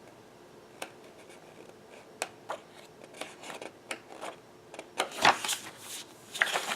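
Sheets of patterned scrapbook paper being handled and flipped through: scattered light taps and paper rustles, with louder rustling about five seconds in and again near the end.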